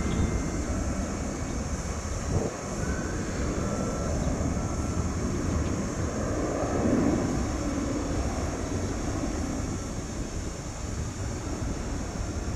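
Boeing 737-300's two CFM56 turbofan engines running at takeoff power during the takeoff roll, heard from afar as a steady rumble that swells about seven seconds in. A short thump about two seconds in.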